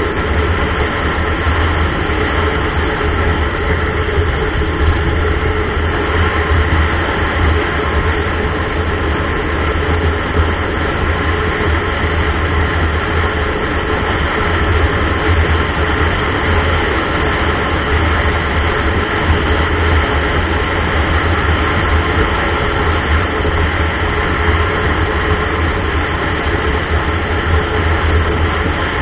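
Steady engine drone with wind and road noise from a vehicle cruising at highway speed, picked up by a camera mounted on it.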